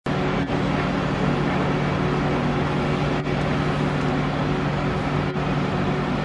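Cat 330D L excavator's diesel engine running steadily under working load with a deep, even hum while it loads a dump truck.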